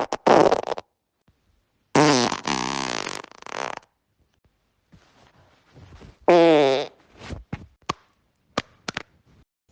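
A series of human farts: a brief one at the start, a long, pitched, wavering one from about two seconds in, and a shorter pitched one a little after six seconds, followed by a few brief sharp pops.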